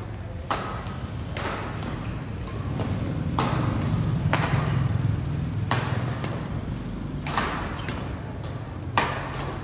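Badminton rackets striking a shuttlecock in a fast doubles rally: about eight sharp hits, one every second or so, each ringing briefly in the large hall, over a low steady hum.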